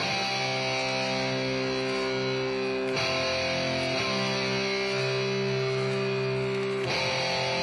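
Background music led by guitar, with held chords that change about three seconds in and again near the end.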